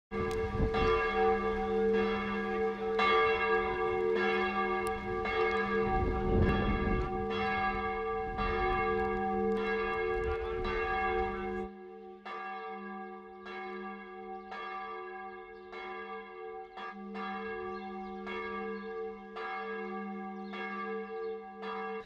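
A single church bell tolling steadily, a stroke roughly every second, each stroke ringing on under the next. About halfway through the bell drops in level and a low rumble beneath it falls away.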